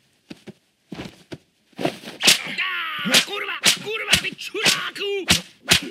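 Film soundtrack of a brawl: a run of sharp punch and slap impacts, about two a second, starting about two seconds in, with cries and grunts of the fighters between the blows.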